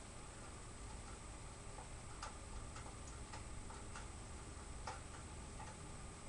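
Faint, irregular light clicks as a screwdriver works the screw of a plastic AK magazine clamp, about half a dozen ticks starting about two seconds in.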